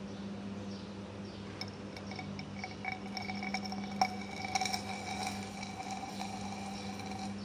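Glass test tube ringing faintly and ticking as resorcinol, formaldehyde and hydrochloric acid react in it, a strongly exothermic reaction that sets into a pink solid. The ringing tone starts about one and a half seconds in and holds, with a few sharp clicks around the middle, the loudest about four seconds in.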